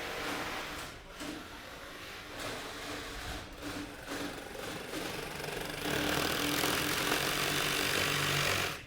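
Electric jigsaw cutting wood, running unevenly at first, then a louder steady cut from about six seconds in that stops abruptly near the end.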